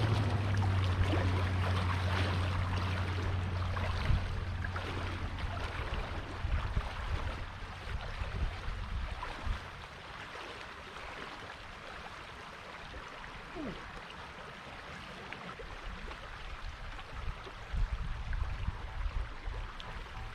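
Moving creek water and a kayak on it, with scattered light knocks and splashes. A low steady rumble runs through the first few seconds, then fades.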